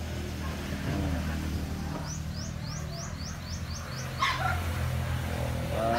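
A dog barking about four seconds in and again at the end. In the middle there is a rapid run of about eight short, high, rising chirps, over a steady low hum.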